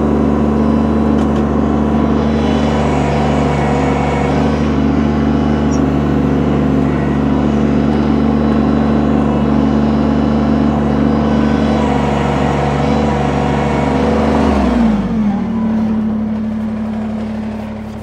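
Kubota BX subcompact tractor's three-cylinder diesel engine running steadily at high revs while the backhoe hydraulics push the machine forward; about fifteen seconds in the revs drop, the pitch gliding down, and the sound eases off to a lower idle.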